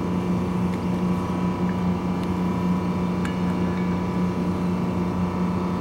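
Steady drone of an idling diesel engine on the train, a constant low hum with no change in speed, with a few faint light clicks.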